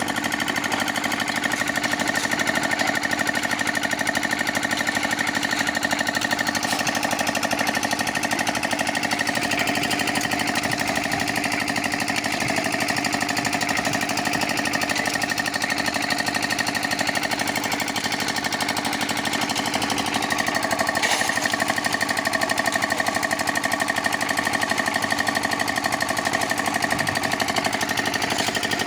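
Concrete mixer running steadily, its motor and drum giving a fast, even mechanical rattle.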